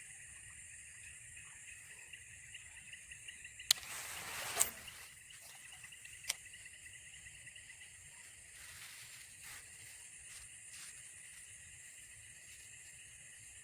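A steady, high-pitched chorus of insects chirping in fine pulses. About four seconds in comes a short noisy rustle with sharp clicks, and there is one more sharp click a couple of seconds later.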